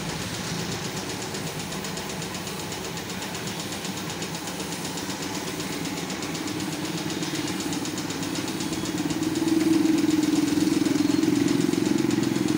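Hiss of a gravity-feed spray gun spraying paint onto a motorcycle fuel tank over a steady running motor hum. The hum grows louder about nine seconds in.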